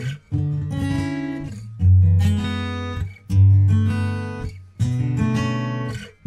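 Background music of an acoustic guitar strumming chords, each chord ringing out and fading before the next strum comes about every second and a half.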